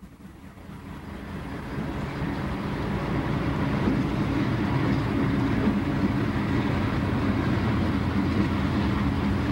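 Seaboard System diesel-electric locomotive 5808 rolling past at close range: a deep engine rumble that builds over the first two or three seconds, then holds steady.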